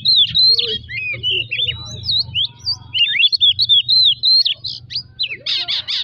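Oriental magpie-robin singing a fast, varied run of whistles and chirps, with a dense, harsher cluster of notes near the end. It is a fired-up song of the kind used to provoke other magpie-robins into singing.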